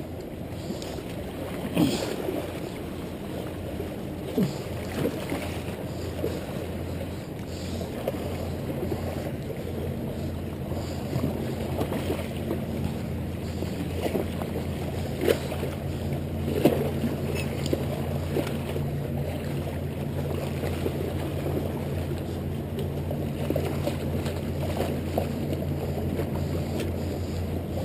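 Wind rumbling on the microphone over seawater washing against jetty rocks, with a few brief sharp knocks scattered through.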